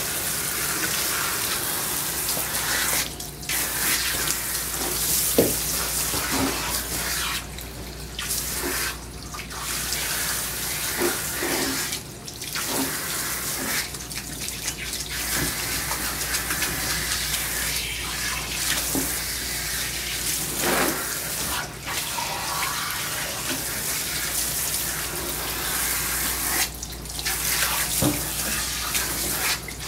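Water spraying from a pistol-grip hose sprayer onto a long-haired dog's wet coat in a grooming tub, a steady rush that cuts off briefly several times.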